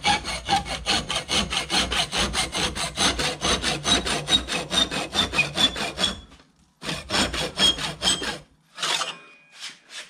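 Wide-bladed hand saw cutting a thin metal strip held in a vise, with fast, even back-and-forth strokes. It stops about six seconds in, saws again for a second or two, then makes a few last strokes near the end.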